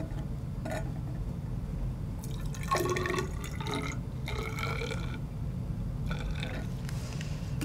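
Hydrogen peroxide poured from a bottle into a tall glass measuring cylinder, splashing and gurgling in several uneven spurts as the cylinder fills.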